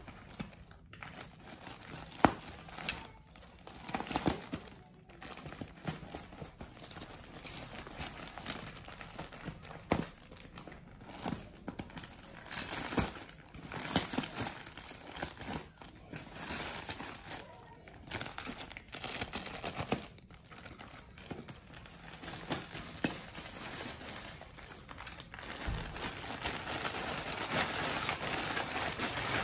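Plastic parcel wrapping and clear tape crinkling and rustling as it is cut open with a box cutter and scissors, with scattered sharp clicks. It gets louder near the end as the wrapping is pulled open.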